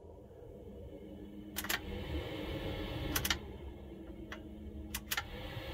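Electrolux RV range hood fan running with a steady whoosh that grows louder in the middle and then eases, while its push buttons click four times as the speeds are switched.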